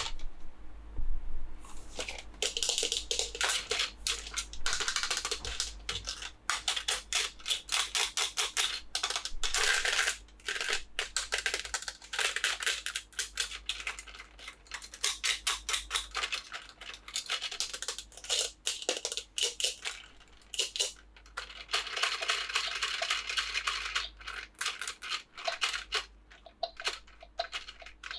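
Toy packaging being handled and opened: rapid crackling, crinkling and rustling of plastic and card, many small clicks in quick succession with longer rustling stretches.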